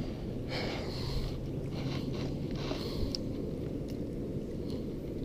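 Rustling and a few small clicks from hands handling a just-landed small bass and the fishing line, heaviest in the first second and a half, over a steady low rumble.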